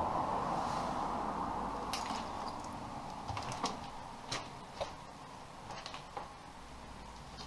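An interior door in an old house pushed open, then a few scattered light clicks and knocks as someone walks into a small room.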